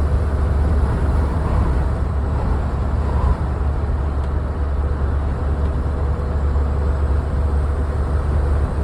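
Road vehicle travelling along, with strong wind rumbling heavily on the microphone over the steady road and engine noise.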